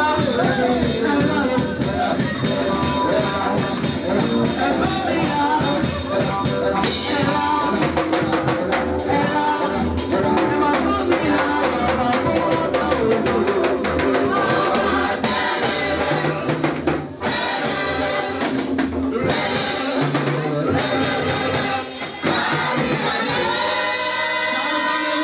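Choir singing with a band backing, drum kit keeping a steady beat; the music drops out briefly twice near the end.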